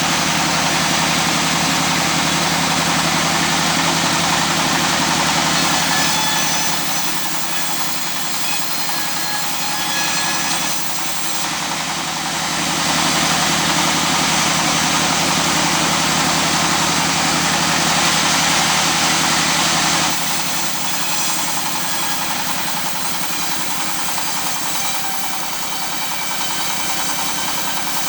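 Circular saw machine running steadily, a low motor hum under a dense high whir, its loudness shifting a few times.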